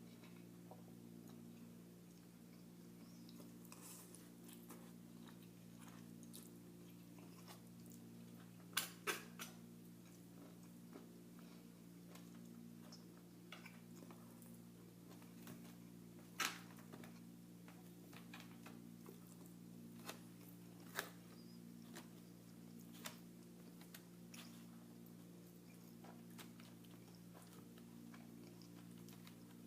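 A person quietly chewing and eating food, with a few sharp clicks or smacks, the loudest about a third and halfway through, over a steady low hum.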